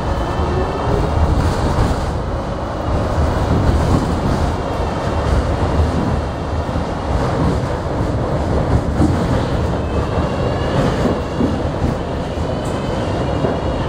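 Inside an R68 subway car: the steady low rumble of the car running on the rails, with a persistent high buzz of several thin tones layered over it.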